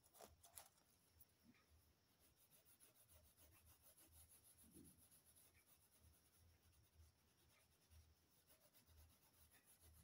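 Faint, quick back-and-forth strokes of a colouring crayon rubbing on paper, a steady scratchy rhythm, with a couple of small clicks near the start.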